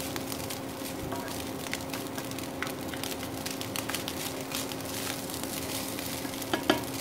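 Fried rice being tossed and stirred with two spatulas in a nonstick wok over the heat: a light sizzle with frequent small scrapes and clicks of the spatulas against the pan. A steady low hum runs underneath, and a couple of louder knocks come near the end.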